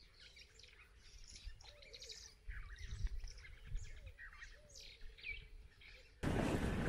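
Wild birds calling: a scatter of short chirps and whistles that rise and fall, over a lower warbling call. About six seconds in, the steady noise of a moving vehicle cuts in abruptly.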